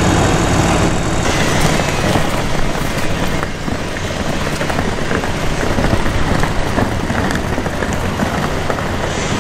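Road traffic: a low idling engine hum that cuts off about a second in, then a steady wash of vehicle and street noise.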